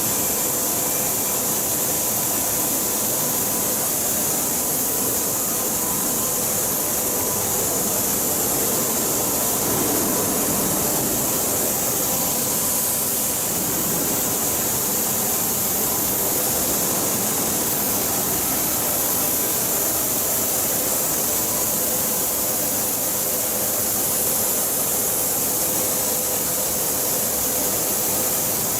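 KOHAN steel-coil cut-to-length line running: a steady mechanical hiss and hum at a constant level, with no distinct clunks or cuts.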